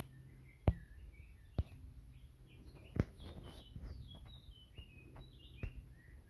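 Small birds chirping outdoors, short high chirps scattered throughout, with a few sharp clicks, the loudest about two-thirds of a second in and at about three seconds.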